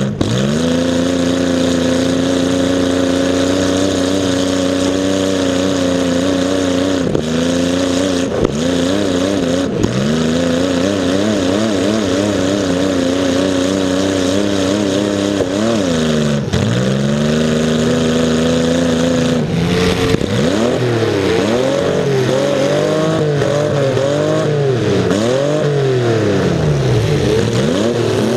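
Demolition derby car's engine blaring through short open exhaust stacks that stick up through the hood. It holds high revs at first, drops and climbs again several times, and from about two-thirds of the way in revs up and down over and over.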